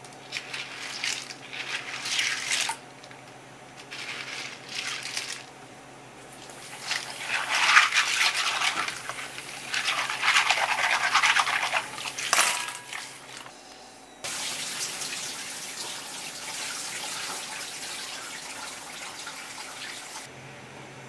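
Asari clams being scrubbed together by hand in a pot of water, shells clattering and water sloshing in uneven bursts that grow loudest after about seven seconds. From about fourteen seconds a steady rush of running water takes over and stops sharply near the end.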